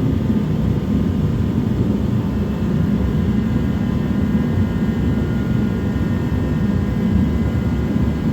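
Forced-air jet heater running steadily: an even, low roar with a faint high whine over it.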